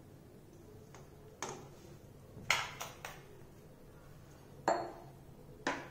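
Kitchen dishes knocking and clinking: a plate and glass bowls moved and set down on the countertop, about half a dozen separate sharp knocks.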